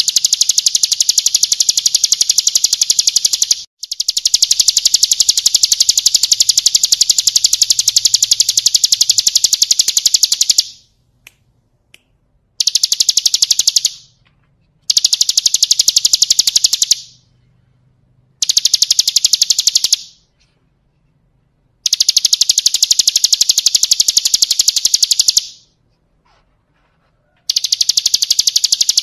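Bar-winged prinia (ciblek kristal) singing a very fast, high, buzzing trill in loud bouts of about two to seven seconds, each cut off abruptly, with short silent pauses between them.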